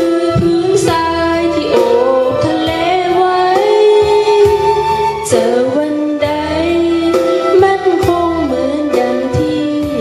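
A young woman singing a Thai song into a microphone over an instrumental backing track, holding long notes that bend in pitch.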